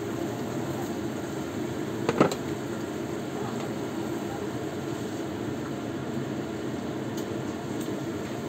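A steady low whirring hum in the kitchen, with one sharp clank of cookware about two seconds in as the lid comes off a wok of simmering soup.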